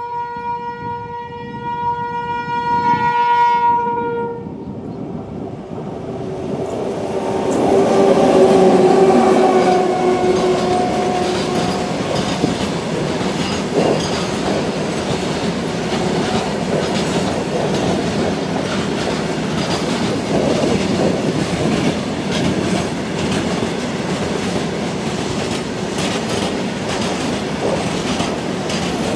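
Indian Railways WAG-9 electric freight locomotive sounding its horn, one held note for about four seconds. The train then passes, loudest about eight to ten seconds in, and the freight wagons roll by with a steady rumble and clickety-clack of wheels over the rail joints.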